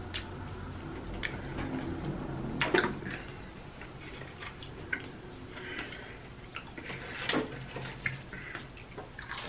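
Close mouth sounds of two people eating fried chicken drumsticks: chewing, wet lip smacks and meat being pulled off the bone, with scattered small clicks.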